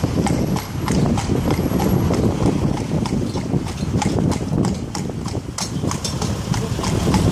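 Horse's hooves clip-clopping on a paved road as it pulls a carriage, a steady run of hoof strikes over a continuous low rumble.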